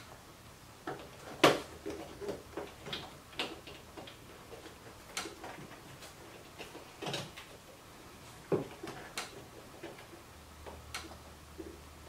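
Irregular light clicks and knocks from hands fitting small plastic clips onto a convertible soft-top frame, with the sharpest knock about a second and a half in.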